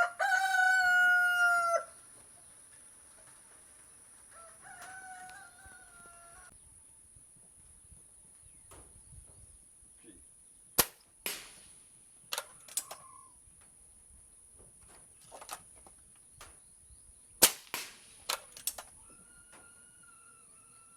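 A rooster crows loudly at the start, and again more faintly a few seconds later and near the end. From about ten seconds in, a Crosman Nitro Piston .22 break-barrel air rifle fires with sharp cracks, several coming in close pairs. A steady high-pitched whine runs underneath.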